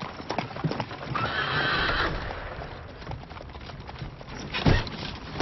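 Animated horse-drawn carriage rushing in, with hooves clip-clopping and a horse whinnying, then a loud crash about four and a half seconds in.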